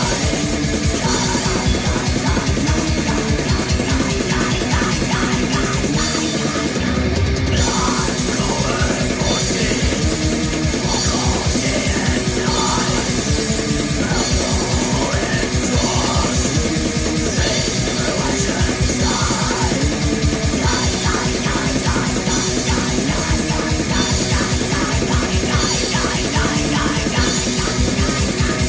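Blackened speed metal: fast distorted guitars and rapid drumming, with harsh yelled vocals. There is a short break about six seconds in before the full band comes back.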